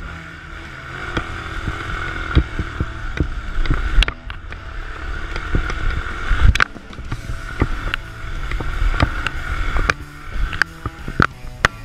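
Yamaha 250 cc single-cylinder enduro bike engine running under load and revving up and down as it climbs a steep forest trail. Sharp knocks from the bike bouncing over roots and rocks are heard throughout.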